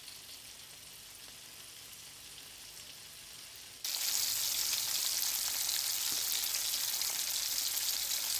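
Coated chicken wings sizzling as they deep-fry in a pan of oil. About four seconds in, this switches abruptly to the louder sizzle of a whole tilapia deep-frying in bubbling oil.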